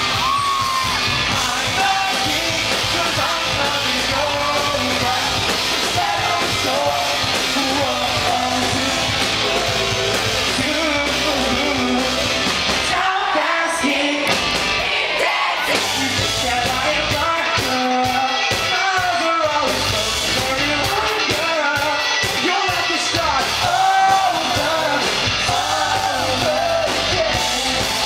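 Live pop-rock band playing, with lead singing over guitars, bass and drums, heard from the audience in a club. Around the middle the bass and drums stop and start in short hits under the vocals.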